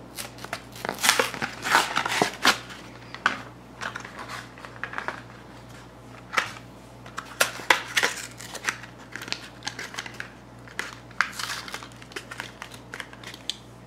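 Clear plastic blister pack crinkling and crackling in irregular bursts, with sharp clicks, as it is pried and torn away from the cardboard backing card of a Hot Wheels die-cast car package.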